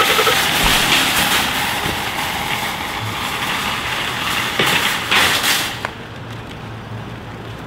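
Metal shopping cart rattling as it is pushed across asphalt, then clanking into a cart corral with a couple of sharp knocks about five seconds in; the rattle stops abruptly just before six seconds. A low steady hum, like an idling vehicle, continues underneath.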